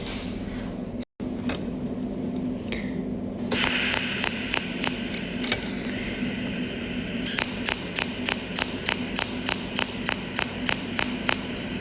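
Cold welding machine laying a run of overlapping spot welds: a steady hum and hiss, then from past the middle a regular train of sharp zapping clicks, about four a second, one per weld pulse.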